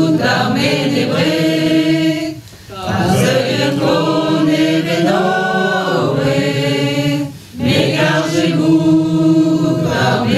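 Mixed choir of men and women singing unaccompanied, in phrases broken by two short breath pauses, about two and a half and seven and a half seconds in.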